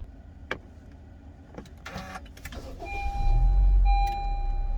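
Car sounds: a few sharp clicks and knocks, then a low rumble swells in and a steady electronic warning tone sets in about three seconds in.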